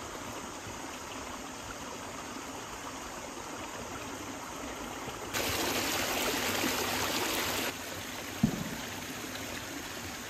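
Steady trickle of shallow flowing water. For about two seconds in the middle a louder hiss cuts in and out abruptly, and a single sharp click comes near the end.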